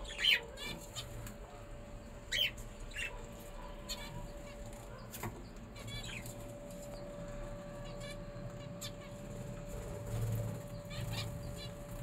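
Small pet parrots giving scattered short, sharp chirps, a few of them brief trills, the loudest near the start and about two seconds in, over a faint steady hum.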